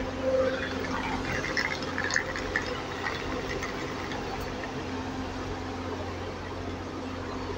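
Class 158 diesel multiple unit standing at the platform, its diesel engines idling with a steady low hum.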